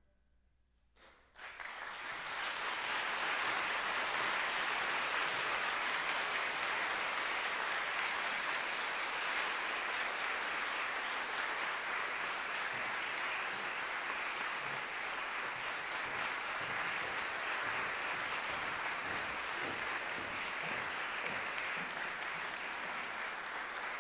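About a second and a half of near silence, then an audience breaks into applause, which holds steady.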